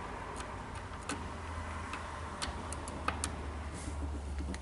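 Scattered light clicks and ticks of small metal drill gear-assembly parts being handled and fitted, over a steady low hum.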